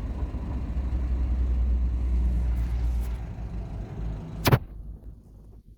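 Talbot Express van engine running warm at a steady idle, with no misfire now that it is warm. About four and a half seconds in there is a sharp click, and the engine sound then falls away.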